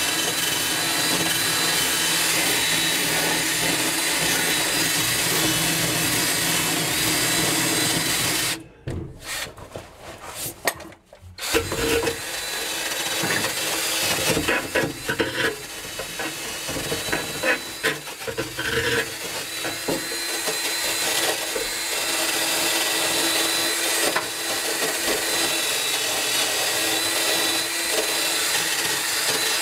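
Cordless drill spinning a wire wheel brush against rusty bolt heads and threads, scrubbing off decades of rust and crud. The drill stops for a few seconds about nine seconds in, then starts again with uneven scraping before running steadily.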